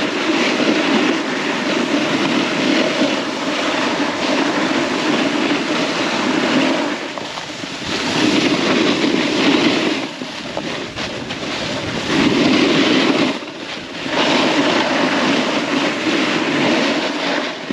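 Snowboard sliding down an icy slope: a loud, rough, continuous scraping hiss that eases off briefly three times, as with turns, before picking up again.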